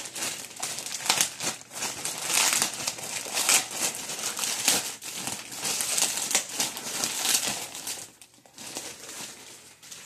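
Plastic shipping mailer bag being torn open and crinkled by hand: a dense run of crackling rustles that eases off about eight seconds in.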